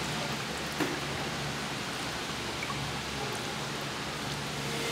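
Running water splashing steadily while raw beef intestines are rinsed by hand.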